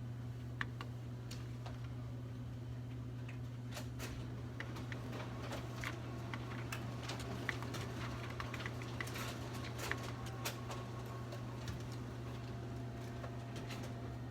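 HP LaserJet 600 laser printer running with a steady low hum and many irregular clicks and ticks, thickest in the middle: the loud noise it has developed.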